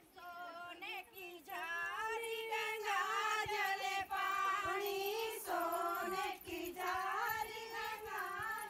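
Several women singing together in high voices, a song in short phrases that pause now and then.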